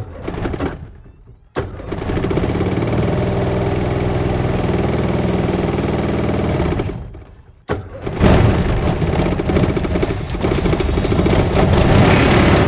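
Engine of a 1984 Kitfox 1 light plane running with its wooden propeller turning, kept going after an earlier stall on old fuel. It runs steadily, drops out briefly twice, and is louder from about eight seconds in.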